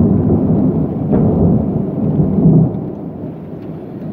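Loud thunder rumbling in a thunderstorm. It starts abruptly, swells twice in the first few seconds, then dies down into a softer rumble.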